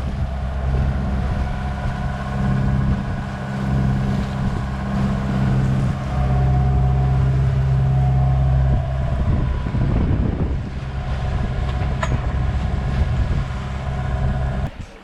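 Sailboat's inboard diesel engine running steadily while motoring under way: a constant low hum with steady engine tones.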